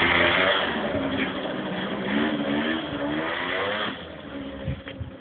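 Small motor scooter engine revving as it pulls away, its pitch wavering up and down, then fading about four seconds in as it moves off.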